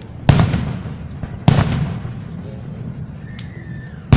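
Fireworks bursting overhead: two loud booms a little over a second apart, each trailing off in a rumbling echo, and another boom just at the end.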